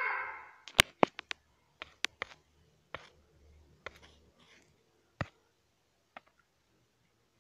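A cat's meow trailing off at the very start, then a run of sharp clicks and taps: a quick cluster in the first second or so, then single clicks spaced out, the last about six seconds in.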